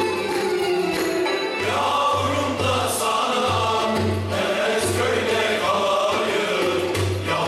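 Men's choir singing a Turkish folk song (türkü) together, over instrumental accompaniment with a low, pulsing beat.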